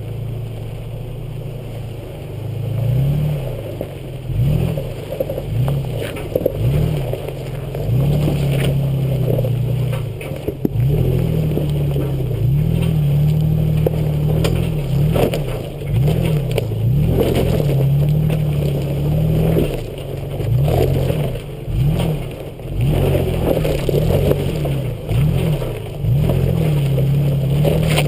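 An off-road 4x4's engine revving up and falling back again and again, each surge a rise then drop in pitch, while the vehicle crawls over rock. Scattered crackles and scrapes of rock under the tyres and underbody sound through it.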